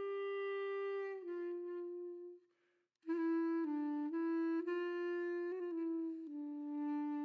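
Background music: a slow solo melody on a woodwind-like instrument, held notes changing pitch every second or so, with a short break about two and a half seconds in.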